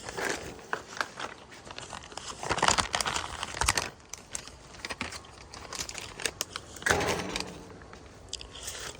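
Packaging crinkling and rustling in several irregular bursts, with small clicks: a hard start kit (start capacitor and relay) being unpacked from its wrapping.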